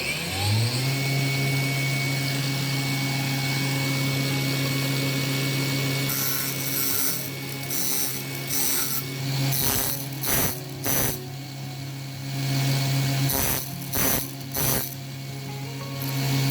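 Electric circular saw starts, spinning up within a second, and runs steadily. From about six seconds in it cuts wood in a series of short bursts, its hum dipping under each cut.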